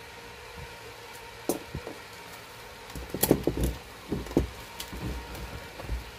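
Knocks and clatter of a voltage stabilizer's open sheet-metal case and its transformer being handled and shifted by hand: a single knock early, a quick cluster of knocks about three seconds in, and a few more thumps after it.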